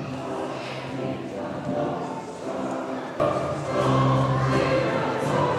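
A choir singing, with long held notes, which grow louder about three seconds in.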